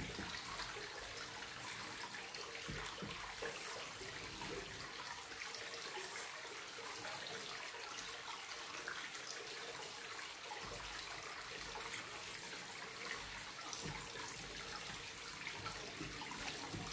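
Steady, even hiss of running water, with a few faint small clicks over it.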